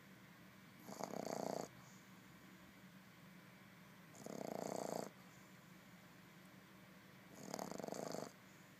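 Boston Terrier puppy snoring in its sleep: three snores, about one every three seconds, each lasting just under a second.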